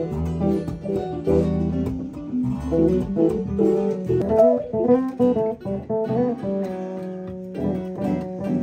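Acoustic guitars, an electric guitar and an electric bass playing a tune together in a small-group jam.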